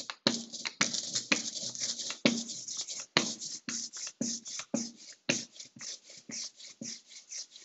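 Hand roller rolled back and forth through black etching ink, giving a sticky hiss with each stroke, about two to three strokes a second. The sound tells of ink at a good working consistency.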